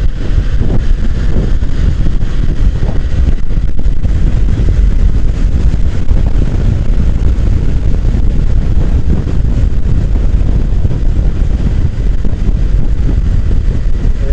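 Steady, loud wind rush on the rider's microphone of a motorcycle at road speed, with engine and road noise blended underneath.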